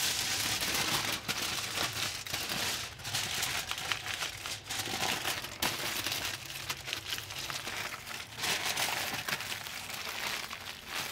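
Aluminium foil crinkling and crumpling as it is folded tightly around racks of pork spare ribs on a smoker grate, the wrapping stage of the cook. An irregular, continuous crackle of many small sharp crinkles.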